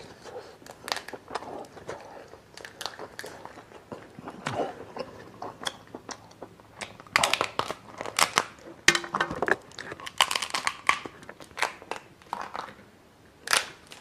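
Close-up eating sounds of a cooked lobster: shell crackling as the meat is pulled and torn out, with biting and chewing. There are irregular sharp crackles throughout, thickest in the middle of the stretch.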